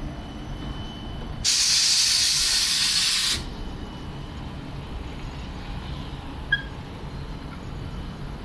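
Sydney light rail tram passing close by with a low running rumble. About a second and a half in, a loud hiss of released air starts abruptly and cuts off sharply about two seconds later.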